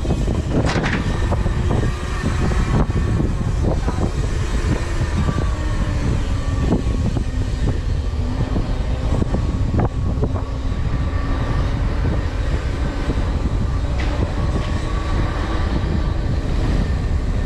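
Mountain bike being ridden at speed: steady wind and tyre rumble on the rider's camera, with a few scattered clicks and knocks from the bike over the ground.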